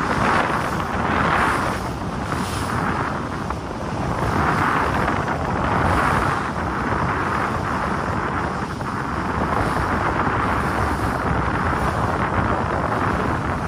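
Wind rushing over the microphone on a moving boat, mixed with the wash of sea water against the hull. The noise swells and eases every second or two.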